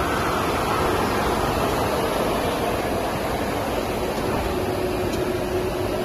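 HDPE double-wall corrugated pipe extrusion line running: a steady mechanical rushing noise with a faint steady hum.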